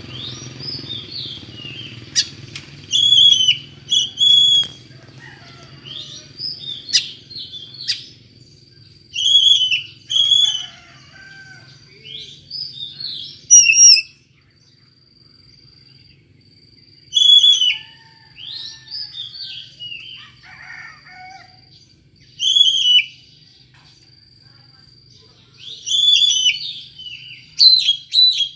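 Oriental magpie-robin singing an unusual song: loud short phrases of whistled and chattering notes, repeated every few seconds with quieter warbling between them.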